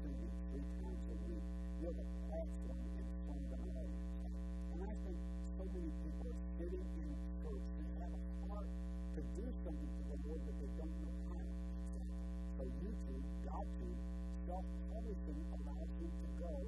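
Steady electrical mains hum with a ladder of overtones, loud and unbroken, with a man's voice talking faintly beneath it, nearly buried by the hum.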